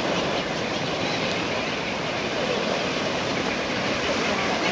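Steady wash of surf and splashing water from a seabird feeding frenzy, pelicans plunging into anchovy schools, with faint seabird calls mixed in.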